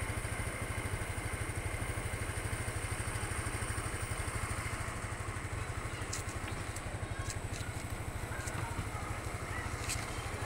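An engine idling steadily with an even low throb, joined by a few faint clicks in the second half.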